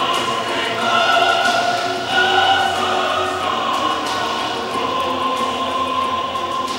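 Voices singing together as a choir, ending on a long held note in the second half that slowly fades.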